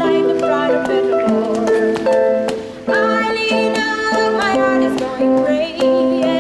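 Live music: a singing voice over plucked string notes, with the voice holding a wavering line in the middle.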